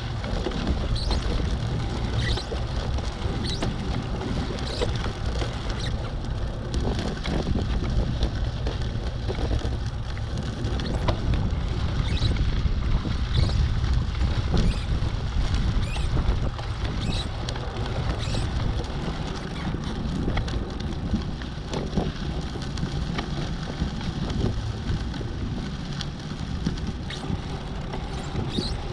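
Wind rumbling on the microphone, a steady low rumble rising and falling with the gusts, with faint short high chirps recurring about once a second.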